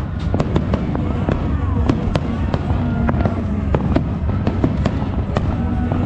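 Aerial fireworks going off: a rapid run of sharp bangs and crackles, several a second, over a continuous low rumble.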